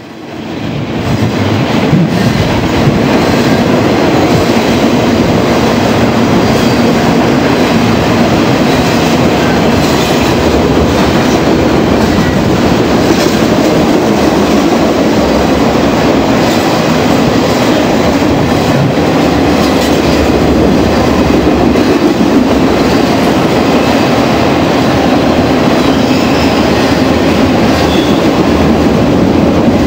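BNSF intermodal freight train's cars rolling past close by: a steady rumble and rattle of wheels on rail, with scattered clicks over the rail joints. It fades in over the first two seconds.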